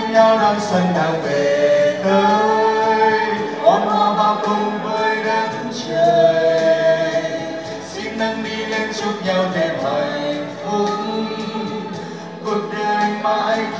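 A man and a woman singing a Vietnamese pop duet into handheld microphones over an instrumental backing track with a steady beat, amplified through a PA system.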